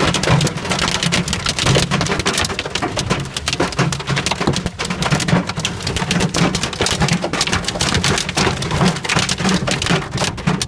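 Hailstones pelting a car during a hail storm, heard from inside the car as a dense, continuous clatter of rapid impacts.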